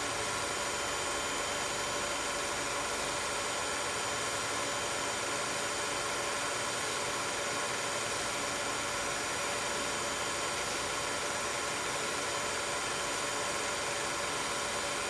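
16mm film projector running: an even, steady whirring hum with several constant tones.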